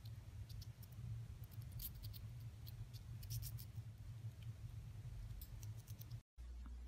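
A chipmunk nibbling food, heard as faint, quick, irregular crisp clicks and crunches of its teeth over a low steady hum.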